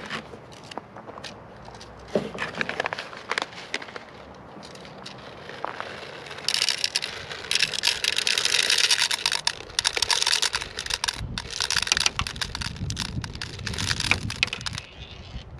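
Plastic airsoft BBs poured from a plastic bag into a high-capacity M4 magazine. A few scattered clicks of handling come first, then about six seconds in a dense, rapid clatter of pellets pouring in begins and runs on with short breaks.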